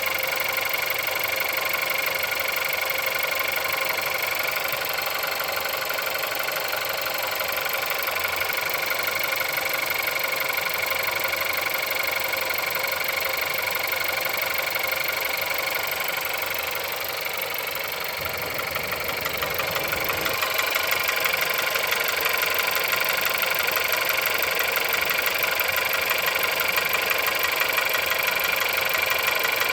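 Car engine idling with a fast, steady knock, the knock the owner points to in this engine with 176,000 on the clock. It gets a little louder about twenty seconds in.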